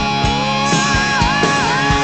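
Background rock music with a steady drum beat and a lead line that bends up and down in pitch.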